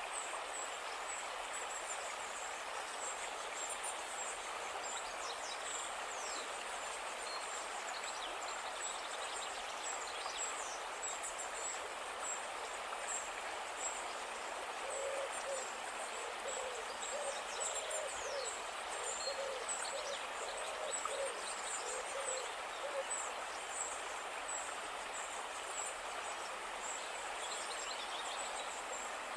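Steady rush of flowing stream water with continuous high chirping over it. About halfway through, a bird hoots in a long run of quick, low notes for several seconds.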